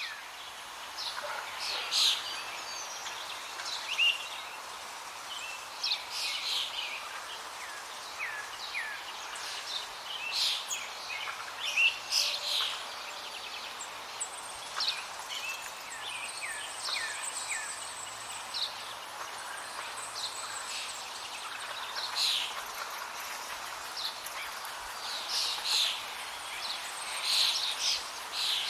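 Several songbirds chirping and calling over a steady outdoor hiss, with short, quick chirps and downward-sweeping notes throughout.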